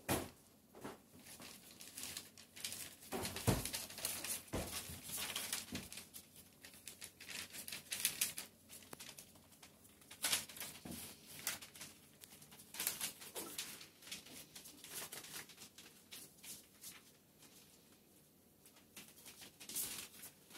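Newspaper rustling and crinkling under Shetland sheepdog puppies as they scamper over it, with irregular scratchy crackles and light paw taps.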